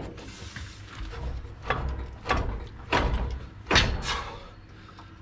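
A PSR coil-over front strut being wrestled into place in the front suspension, knocking and clunking against the arms and mounts: about five knocks, the loudest about three-quarters of the way through, over low handling rumble.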